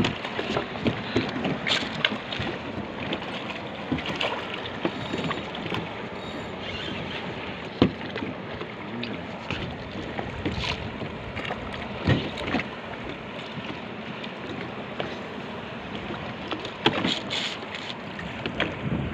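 Wind on the microphone and water washing against the side of a small boat, with scattered sharp knocks and splashes as a hooked fish thrashes at the surface beside the hull.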